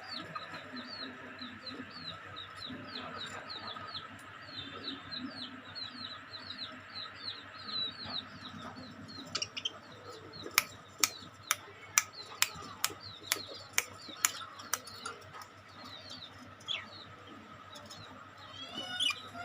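Budgerigars chirping in quick, repeated short calls. Around the middle comes a run of about ten sharp taps, roughly two a second.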